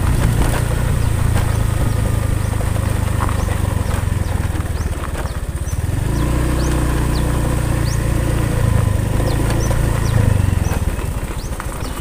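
Small motorcycle engine running steadily at low speed. It eases off about four and a half seconds in, picks up again about a second and a half later, and fades near the end.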